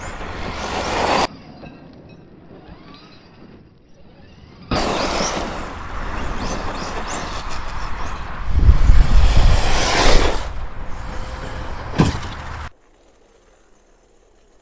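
Arrma Outcast 6S RC car driven hard on dirt: the brushless motor whines up under throttle over the crunch of tyres on loose ground, with a heavy thump about two-thirds of the way in and a sharp knock soon after, in several abruptly cut clips that end in a short near-silent gap.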